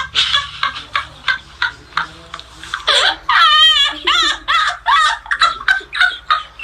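Laughter in quick repeated bursts, about three or four a second, with a long high wavering squeal a little after three seconds in.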